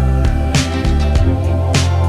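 Background music with a steady beat and a strong bass line, with guitar.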